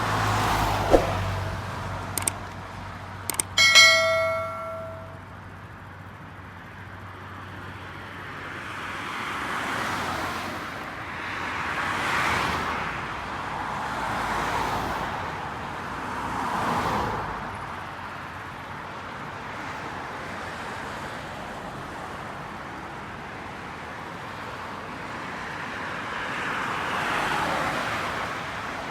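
Highway traffic: vehicles passing one after another, each swelling and falling in pitch as it goes by, over a steady road hum. In the first few seconds there are some sharp clicks, and about four seconds in a short bright metallic ring.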